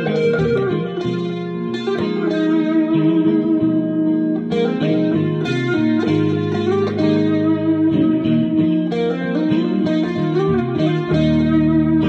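Solid-body electric guitar playing a melodic line of single notes over sustained low notes, changing notes every fraction of a second.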